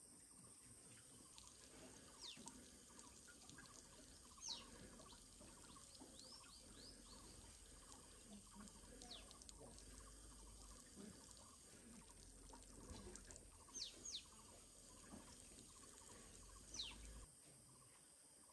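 Faint forest ambience with several short, high, falling whistled bird calls, scattered a few seconds apart.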